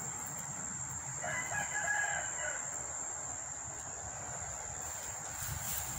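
A rooster crows once, starting about a second in and lasting about a second and a half. A steady high thin whine and a low noise sit underneath throughout.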